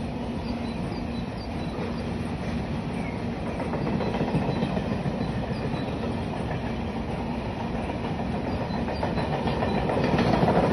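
A long train passing, its wagons running steadily along the rails, getting louder near the end.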